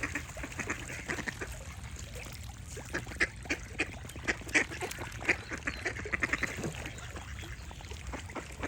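Ducks quacking: many short quacks, some in quick runs, busiest in the middle of the stretch.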